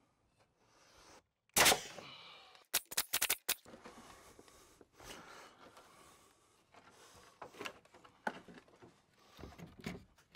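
Knocks and clatter of lumber and tools as a wooden ledger board is set against old wall framing: one loud thump about a second and a half in, a quick run of sharp clicks just after, then scattered lighter knocks.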